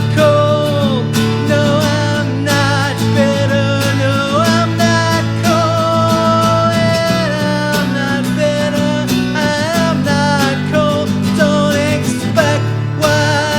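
Instrumental break in a live solo acoustic country song: an acoustic guitar is strummed steadily, and a melody line with bending, held notes plays over it.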